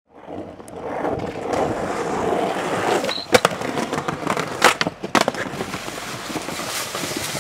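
Skateboard wheels rolling on rough asphalt, with sharp clacks of the board hitting the ground: one loud clack about three and a half seconds in and two more around five seconds in.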